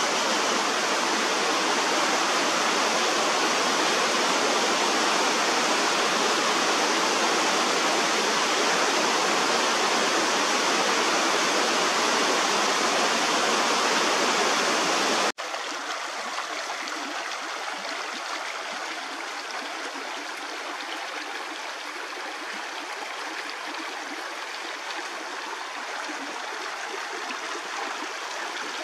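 Mountain creek water rushing steadily. About halfway through it cuts abruptly to a quieter, thinner-sounding flow.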